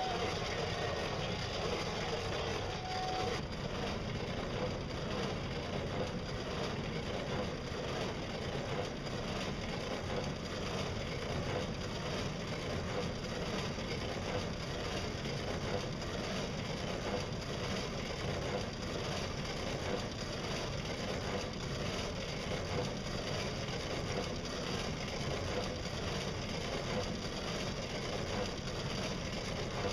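The drive of a solar-and-pedal-powered boat running steadily under way: an even mechanical running noise with a faint, steady high whine.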